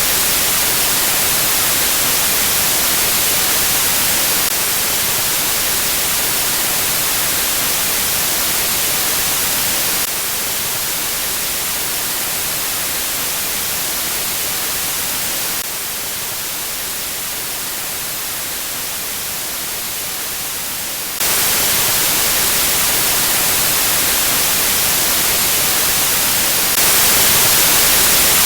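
Speaker calibration test noise: a steady, bright hiss like white noise, played in blocks of about five and a half seconds, its level stepping up or down at each change as the signal moves from one speaker channel to the next.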